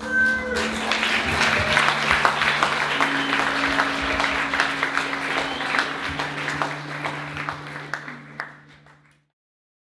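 Audience applauding at the end of a live performance, dying away over the last couple of seconds and then cutting off suddenly, with a steady low held tone sounding underneath.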